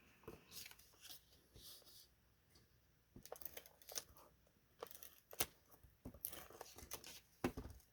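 Faint rustling of paper and cardstock being handled, with a string of light clicks and taps in the second half as pieces are picked up and laid down.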